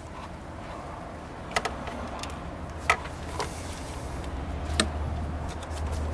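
A few sharp plastic clicks as the electrical plug is pushed onto a new camshaft position sensor and clips into place.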